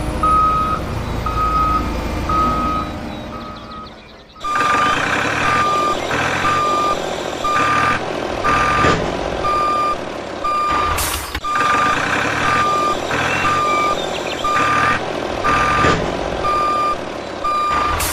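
A vehicle's reversing alarm beeping evenly, about one beep every three-quarters of a second, over engine noise. The beeping fades out about three seconds in and starts again abruptly at about four and a half seconds.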